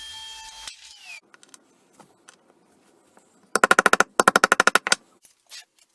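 A power tool's steady whine cuts off under a second in and winds down in pitch. A few seconds later come two short, loud bursts of rapid rattling hammering, roughly twenty blows a second, as from a power tool driving fasteners.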